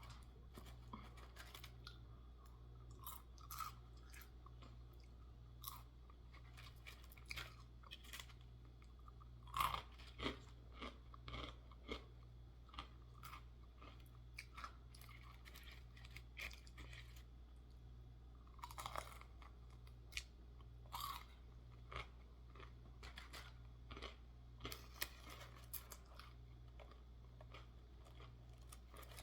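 Close-up chewing and crunching of crispy fried fast food, Popeyes chicken tenders and fries, with irregular crisp bites and a few louder crunches.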